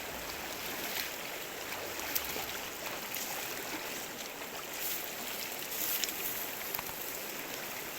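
Stream water flowing steadily, with a few faint clicks scattered through it.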